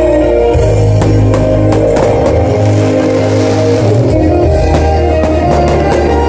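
Loud music with a heavy bass line, with a series of sharp cracks from fireworks bursting over it and a crackling hiss about halfway through.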